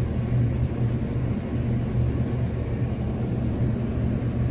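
Ship's engine running: a steady low drone.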